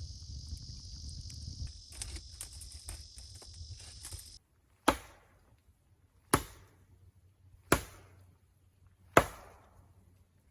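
Steady high insect drone over low rumble and small knocks, cut off abruptly after about four seconds. Then four sharp chopping blows into wood, evenly spaced about a second and a half apart, each ringing briefly.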